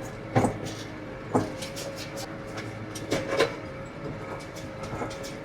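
Tractor engine running steadily while pulling an old hay rake through the field, with irregular clanks and knocks from the rake and hitch every second or two.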